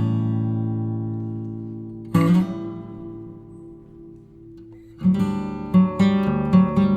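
Background music: acoustic guitar chords strummed and left ringing, a fresh strum about two seconds in, then a brisker run of strummed chords from about five seconds in.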